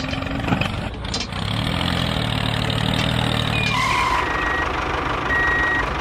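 Tractor engine running steadily, its low hum growing heavier from about a second in until shortly before the middle. In the second half a few steady electronic beeps sound, like a vehicle's reversing alarm, as the tractor backs up.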